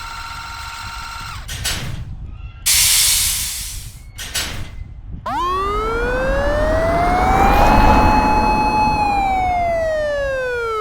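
Train sound effects: a steady electric hum, then a loud burst of air hiss about three seconds in, then a pitched electric motor whine that rises for about two seconds, holds, and falls back down, like a train's traction motor speeding up and slowing down.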